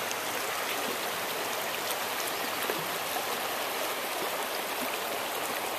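Shallow creek flowing steadily over rocks and stony riffles, a constant rushing of water.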